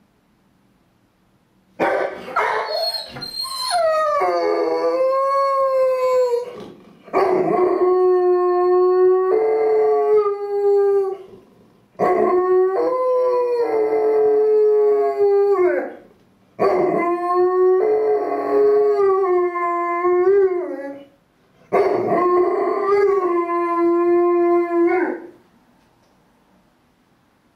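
Golden retriever howling: five long, wavering howls of about four seconds each, the first beginning about two seconds in, with short pauses between them.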